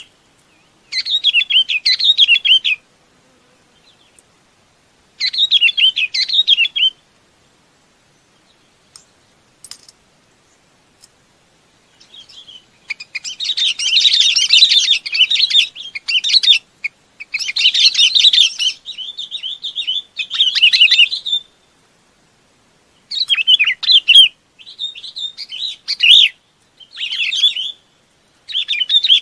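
Bulbuls (chim bông lau) giving flock calls: bursts of quick, bubbly chattering notes. Two short phrases come early, then after a pause a longer run of calls in clusters from about twelve seconds on.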